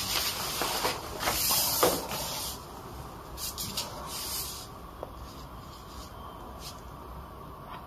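Chinese ink brush stroking across painting paper, making a dry, hissing scratch. One long stretch of strokes comes first, then a few shorter strokes, and after about five seconds it is quieter with only a couple of light ticks.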